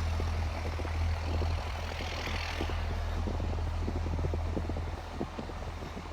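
Engine idling with a steady low hum that grows fainter after about five seconds, with faint irregular small knocks and crunches over it.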